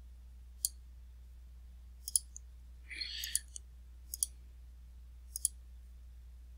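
Computer mouse clicking: several short, sharp clicks, some in quick pairs, about a second apart, with a brief soft rustle about three seconds in.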